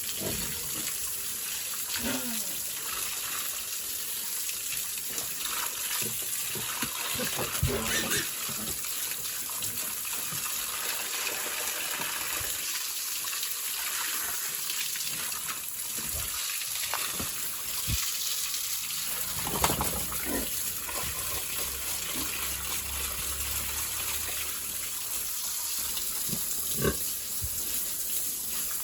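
Water spraying steadily from a hose, a continuous hiss, with a few short knocks.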